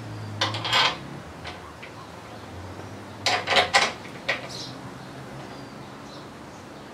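Metal clinks and clanks from hand-working the steel fittings and bolts where the long-tail mud motor's shaft tube joins the engine: a few quick clinks about half a second in and a tighter cluster about three and a half seconds in, over a faint low hum.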